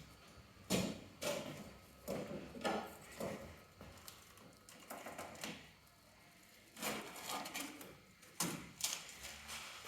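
A series of irregular knocks and clatters, about a dozen, some in quick pairs, with short pauses between them.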